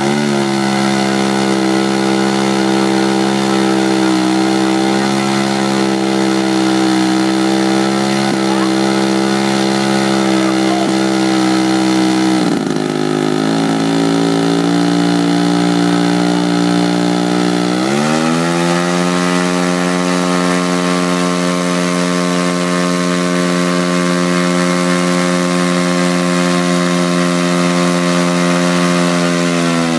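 Large RC model biplane's engine in a ground run-up, propeller spinning, running at a steady pitch. It is throttled back about twelve seconds in, then opened up again about eighteen seconds in to a higher steady pitch that holds to the end.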